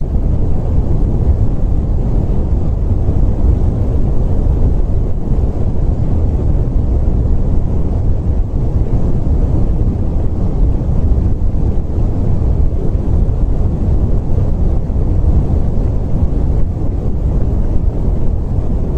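Steady, deep rumbling noise, even and unchanging, with most of its weight in the bass and little above it.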